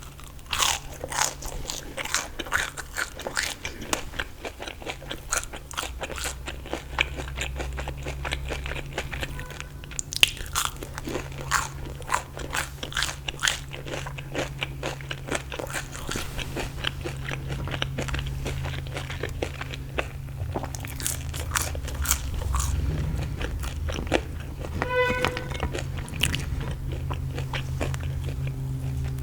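Close-up crunching and chewing of crispy fried food: repeated loud crackling bites and chews over a steady low hum.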